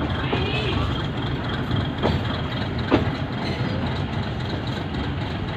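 Metre-gauge passenger train rolling slowly with a steady low rumble, and two sharp knocks about two and three seconds in.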